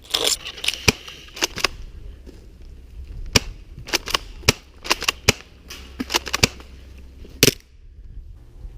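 Airsoft guns firing irregular single shots, sharp cracks a fraction of a second to a second apart, with two louder ones about three and a half and seven and a half seconds in; the firing stops near the end.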